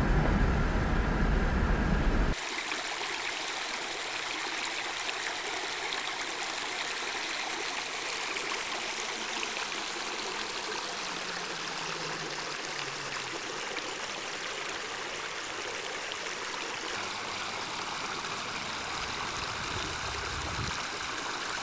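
Car driving, a low road rumble for about two seconds. It cuts abruptly to a shallow stream of water flowing over stones, a steady rushing burble.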